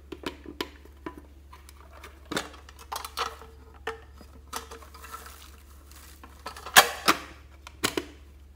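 A small metal tin box being handled, its hinged lid opened and shut with a run of sharp metallic clicks and clanks. The loudest clanks come a little past the middle and again near the end.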